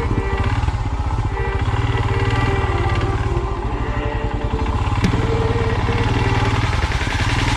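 Royal Enfield Himalayan's single-cylinder engine running steadily under way, with its exhaust pulses and one brief knock about five seconds in.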